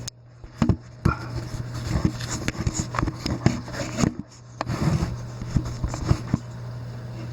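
Irregular knocks and clunks from a chainsaw being handled and set up for a pull-start with the choke on, over a steady low hum.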